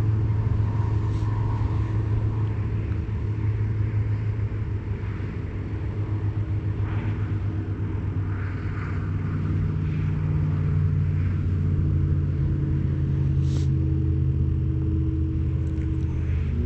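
A steady low mechanical hum, like a motor running, with a short high hiss about thirteen and a half seconds in.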